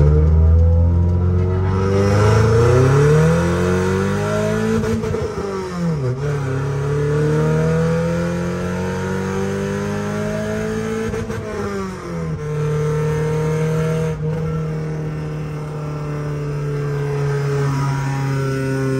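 Daihatsu Charade with a straight-piped exhaust, heard from inside the cabin while being driven: the engine note climbs as it accelerates, drops at a gear change about six seconds in, climbs again, drops at a second shift about twelve seconds in, then holds steady while cruising.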